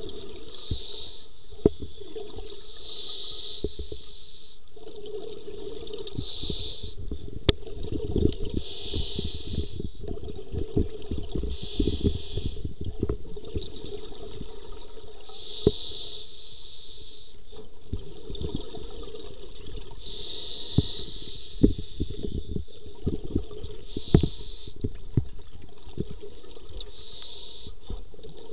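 Scuba diver breathing through a regulator underwater: a hiss with each inhale, every few seconds, alternating with the crackling rumble of exhaled bubbles.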